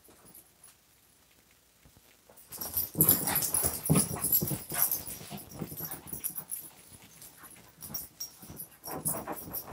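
Shih Tzus playing, with dog noises and scuffling that start suddenly about two and a half seconds in after a quiet start, loudest for the next couple of seconds.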